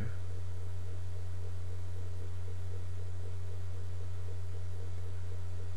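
Steady low electrical hum from a poor-quality microphone, with a fainter higher tone above it.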